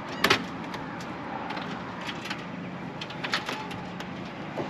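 Scattered light knocks and clatters of gear being handled in a motorhome's storage bay, the loudest a sharp double knock about a quarter second in, over a steady low hum.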